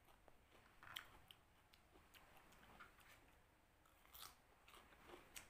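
Faint crunching and chewing of crisp raw Japanese cucumber, with a few sharper crunches about a second in, around four seconds in and near the end.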